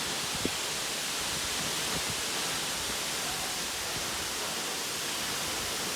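Steady, even rushing of the Wli waterfall's water falling. A brief knock comes about half a second in.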